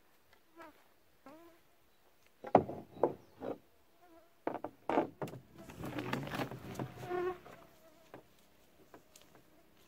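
A paddle and gear knocking against a canoe hull as the canoe is loaded: several sharp knocks, the loudest about two and a half seconds in. Then a longer scraping rustle as the canoe is slid over the shore into the lake.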